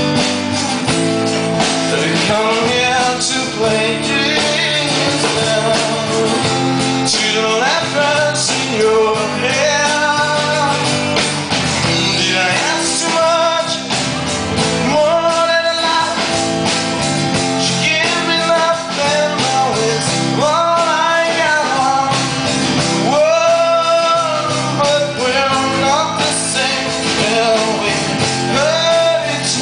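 A live band playing a song: acoustic guitars over a drum kit, with a man singing.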